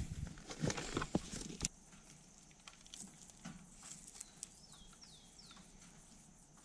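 Knocks and clicks of gear being handled in a vehicle's cargo bed, then quiet outdoor air in which a bird gives three short whistles, each falling in pitch, about four to five seconds in.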